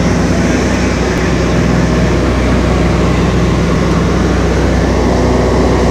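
Airplane in flight heard from inside the cabin: a loud, steady engine drone with a low hum and rushing air noise, unchanging throughout.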